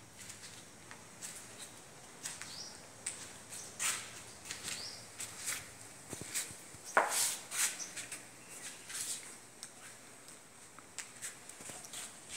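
Irregular footsteps and scuffs on a hard, gritty floor, about one or two a second, with the loudest scrape just before the middle, and a few faint high chirps.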